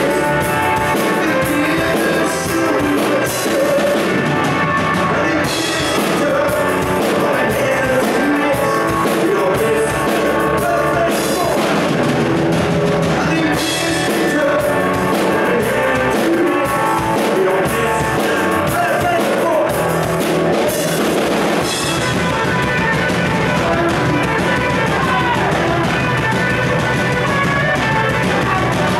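Live rock band playing at full volume: electric guitar, electric bass and drums, with a man singing.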